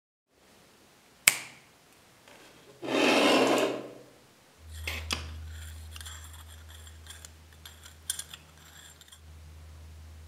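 Small metallic clicks and clinks of a hand-forged areca nut cutter being handled, its hinged blade moving against the frame. A sharp click comes about a second in and a loud, brief rush of noise near three seconds, and a steady low hum runs under the second half.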